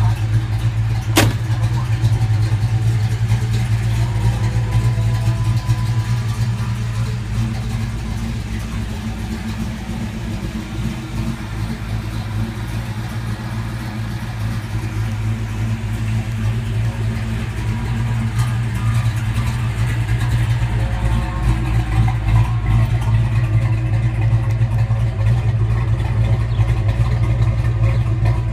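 1969 Dodge Coronet Super Bee's V8 idling steadily, with one sharp knock about a second in.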